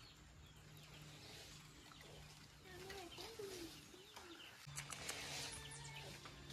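A dove cooing softly: a short run of low, wavering coos from about two and a half to four seconds in, over a steady low hum that grows louder near the end.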